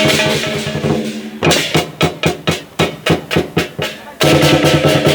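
Chinese lion and dragon dance percussion: a big drum played with clashing cymbals and gong. It opens with a dense, fast roll, changes to separate beats about four a second about a second and a half in, and returns to a fast roll near the end.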